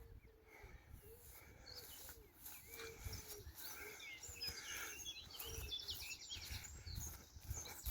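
Faint wild birdsong: several birds chirping and calling in short gliding notes, with a fast trill about five and a half seconds in, over scattered low thuds.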